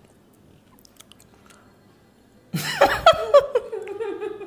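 Faint mouth and chewing noises, then about two and a half seconds in a person lets out a sudden, loud, drawn-out vocal sound without words.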